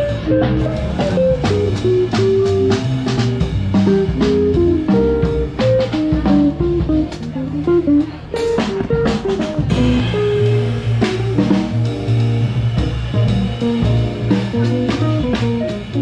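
Live band playing: electric guitar melody over upright double bass and drum kit.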